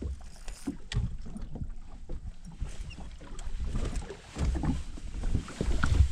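Wind rumbling on the microphone in uneven gusts, with a few light clicks and knocks.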